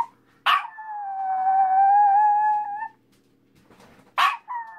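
A small dog howling: one long, steady howl of about two and a half seconds, then, after a pause, a second howl starting near the end.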